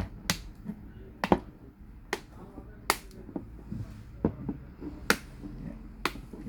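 Plastic back cover of a Samsung Galaxy Tab A 7.0 tablet being pressed back onto its frame, the clips snapping into place in about six sharp clicks at uneven intervals.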